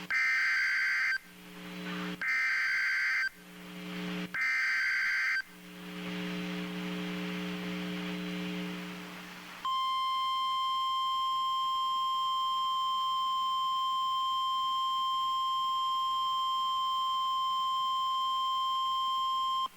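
NOAA Weather Radio emergency alert: three short bursts of warbling SAME digital header data, each about a second long, then about five seconds later the steady warning alarm tone, held for about ten seconds. A low hum from the receiver fills the gaps between the bursts. The sequence signals that a new warning, here a severe thunderstorm warning, is being broadcast.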